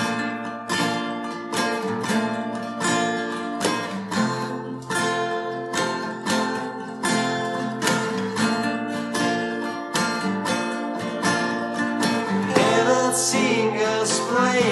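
Two acoustic guitars strumming chords together in a steady rhythm during an instrumental break between sung lines; a man's voice comes back in near the end.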